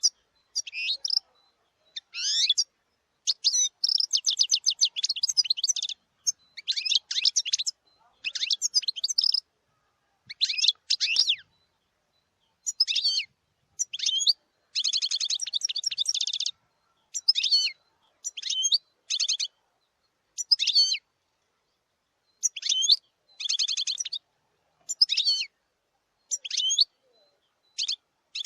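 Wild-caught European goldfinch singing: phrases of quick twittering notes and fast buzzy trills, repeated with short pauses between them.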